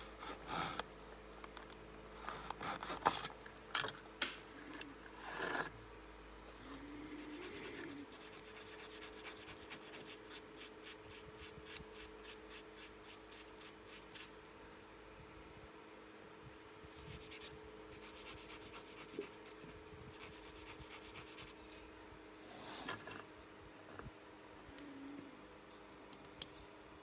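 A thin wooden model spoke rubbed back and forth on a small sanding block in quick, even strokes, about three a second, shaping its end. A few sharp taps and clicks come in the first seconds, and light knocks follow as small wooden parts are handled.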